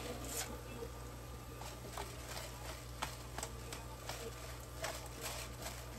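Bottle gourd and ground pork sautéing faintly in a frying pan, with a run of light, irregularly spaced clicks as black pepper is shaken from a container held over the pan.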